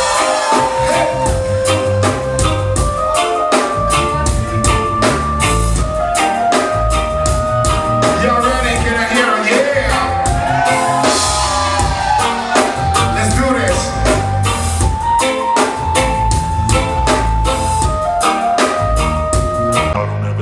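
Band music: a drum kit keeping a steady beat under a melody of long held notes.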